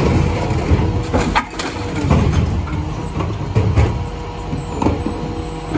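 Rear-loading garbage truck's diesel engine running steadily while its hydraulic bin lifter raises and tips a wheelie bin over the hopper, with several sharp knocks and clatters from the bin and falling rubbish.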